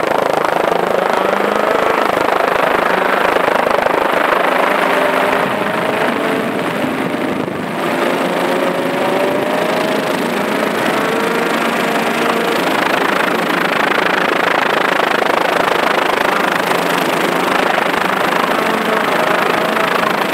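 Ford Escort rally car's Cosworth BDA four-cylinder engine at full throttle. Its pitch rises, breaks off and rises again several times as it changes gear, over a steady rushing noise.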